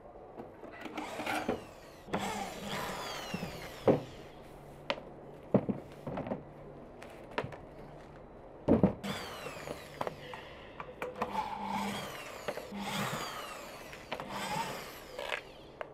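Cordless drill backing out screws from the seat of a metal garden chair, run in several short bursts, its whine rising and falling with the trigger. Sharp knocks in between, the loudest about nine seconds in.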